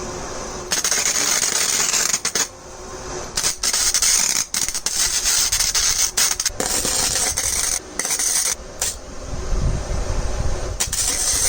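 Flux-core wire welder, a Forney Easy Weld 140 FC-i, welding a steel T-nut onto a bracket: a steady crackle and hiss of the arc in several bursts, stopping and restarting with short breaks.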